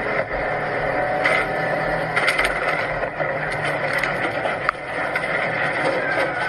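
Truck engine and road noise running steadily, with a scatter of short knocks and clanks as long metal pipes slide off a truck's load and hit the roadway, the sharpest knock near the end.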